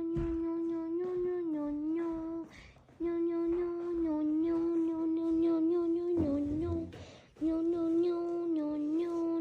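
A person humming one held, droning note that dips slightly in pitch now and then, broken by two short gaps for breath about two and a half and six seconds in.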